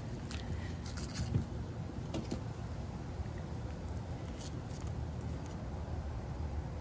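Stick of butter being unwrapped from its paper wrapper: a few faint crinkles and light ticks, over a steady low background rumble.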